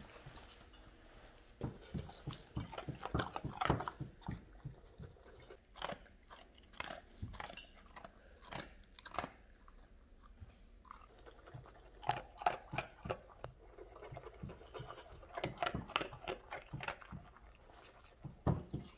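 Dogs chewing and crunching mealworms from a stainless steel bowl, in irregular clusters of crisp crunches with short pauses between.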